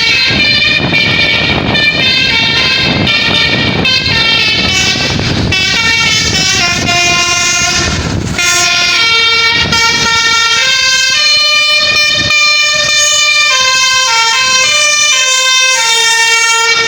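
Tour bus's telolet basuri horn, driven by a DAV module, playing a tune in held notes that step up and down in pitch. A rough rumble of vehicle noise runs under the first half, and the horn cuts off suddenly at the end.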